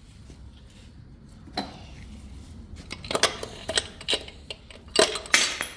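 Metal engine parts and hand tools clinking and clattering as they are handled, with a flurry of sharp clinks and knocks in the second half.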